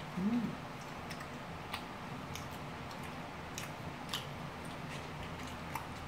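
Close-up eating sounds: chewing of spicy rice cakes with scattered small clicks from mouth and chopsticks, after a brief hum right at the start.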